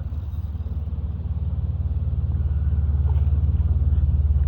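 A motor engine running with a steady low hum that grows gradually louder.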